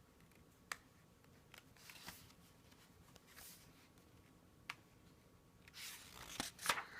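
Faint paper handling and page turning of a picture book: a few soft clicks and brief rustles in a quiet room.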